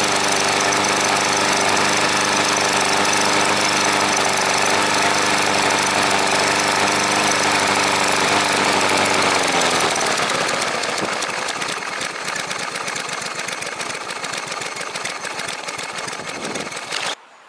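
Gasoline lawn mower engine running steadily at full speed. About ten seconds in, its pitch drops and it runs rough and weaker, then the sound cuts off suddenly near the end.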